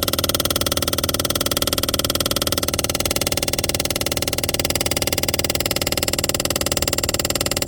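A fast, even buzzing rattle from inside the glove compartment area of a 2021 Toyota RAV4 Hybrid's dashboard, going on steadily without a break.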